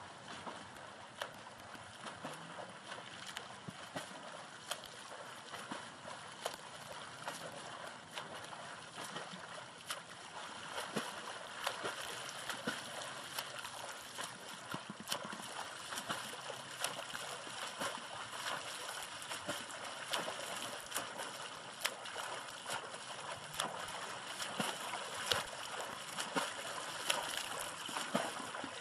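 A swimmer's front-crawl strokes splashing in lake water, irregular splashes over a steady wash of water, growing louder as the swimmer comes closer.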